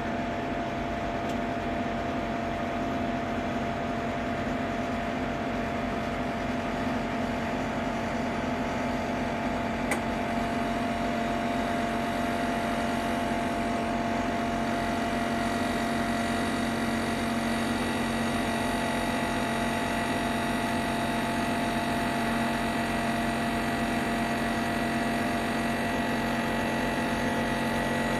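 Ninja Foodi 8-in-1 multicooker running cold: a steady motor-and-fan hum with several held tones, which the owner finds unbearably loud. A single short click about ten seconds in.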